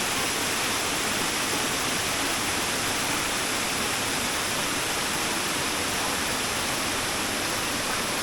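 Steady rushing of a waterfall, its falling water making an even, unbroken roar.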